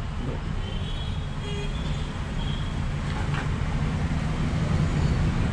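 Steady low rumble of road traffic, growing a little louder near the end.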